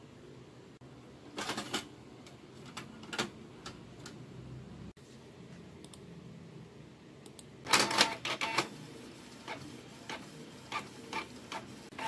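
Canon G1010 inkjet printer clicking and clunking as it starts up and runs a print job, with the loudest clatter about eight seconds in. Its feed motor starts a whine at the very end.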